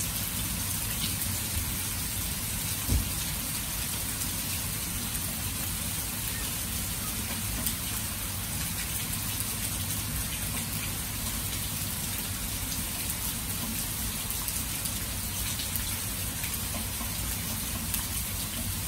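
Steady downpour of heavy rain falling on grass and open water, with a single short thump about three seconds in.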